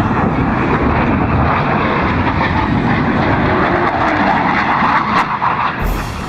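Military jet aircraft flying over an airfield, a loud steady rush of jet engine noise that eases slightly near the end.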